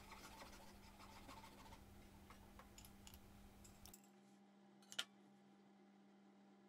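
Faint strokes of a fine handsaw cutting the cheeks off a tenon on a wooden mallet handle, over a low steady hum. The sawing stops about four seconds in, and a single sharp tap follows about a second later.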